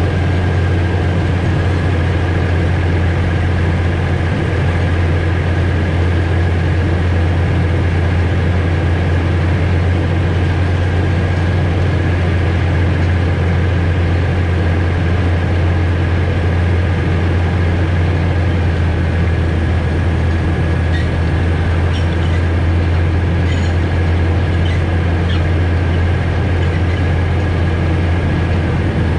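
Alishan Forest Railway train heard from the driver's cab: a steady low engine drone with a thin high whine over it, and a few faint clicks in the last third.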